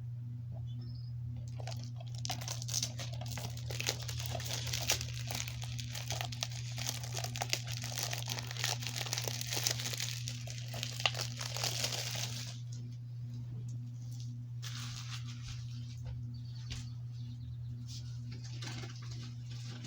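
Plastic shrink-wrap being torn and peeled off a DVD case, a dense crinkling and crackling for about ten seconds, then softer, scattered crinkles.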